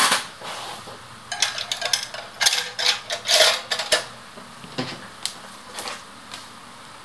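Cinch binding machine being handled on the table: a run of hard clacks and clicks, densest in the first four seconds, then a few lighter clicks.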